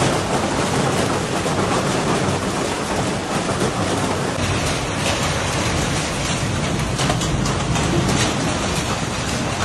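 Heavy hail falling: a dense, steady clatter of hailstones striking paving and ground.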